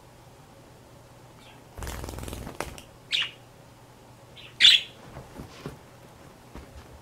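Pet birds: a short burst of wing flapping about two seconds in, then two short high chirps, the second the loudest.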